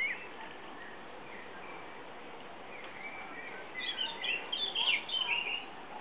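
Small birds chirping, a quick run of chirps about four to five and a half seconds in, over steady background noise.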